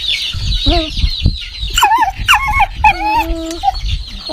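A dog giving short, wavering whining calls from about two seconds in, ending on a longer held tone, while hens cluck in the background.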